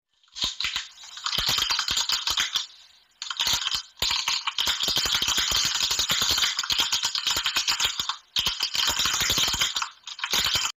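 Typing sound effect: a rapid, continuous clatter of keystroke clicks, broken by short pauses about three, four, eight and ten seconds in.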